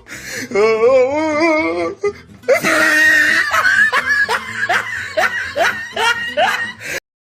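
A person laughing hard: a wavering, quavering giggle, then a run of breathy laughs about two a second that cuts off suddenly near the end.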